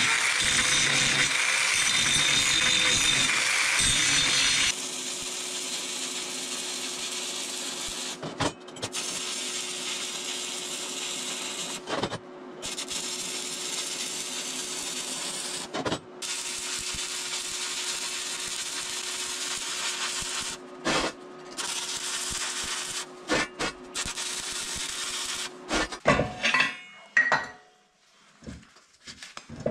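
Workshop tool noise while metal parts are fitted. A loud, even noise for the first four or five seconds gives way to a quieter steady hiss with a low hum, broken by a few short silences. Near the end come several sharp metal knocks and clinks.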